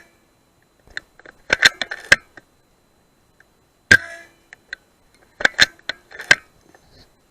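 Air rifle shot about four seconds in, a sharp snap with a short tail. About a second and a half after each shot comes a quick cluster of sharp metallic clicks, which sound like the rifle being recocked for the next shot.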